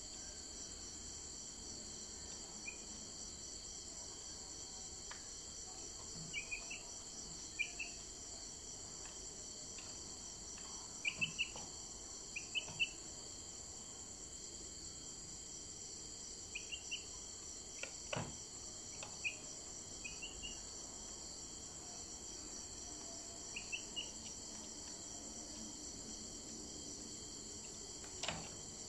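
Steady chorus of crickets, with short high chirps in little groups of two or three every few seconds and a couple of sharp clicks.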